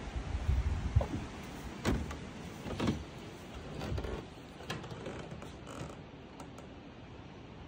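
Footsteps on old wooden steps and floorboards, knocking and creaking about once a second, then fading away in the second half.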